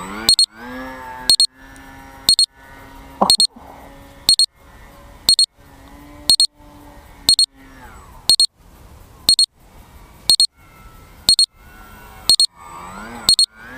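Electronic beeper sounding a short high double beep about once a second, on and on, with a faint steady hum underneath.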